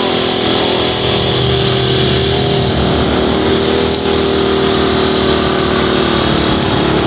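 Hot rod tractor engine running steadily while it is driven, its pitch easing down slightly near the end.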